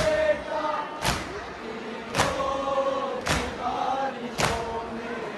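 Voices chanting a Muharram mourning lament (noha) in a sung melody, with a sharp beat striking evenly about once a second in time with the chant.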